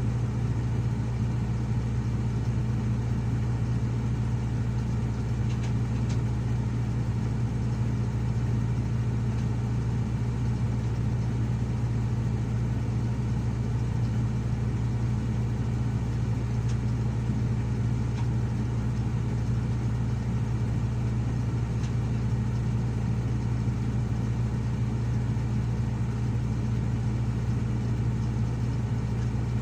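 Heavy diesel engine of earthmoving machinery running steadily at a constant speed, a deep, even hum with no revving.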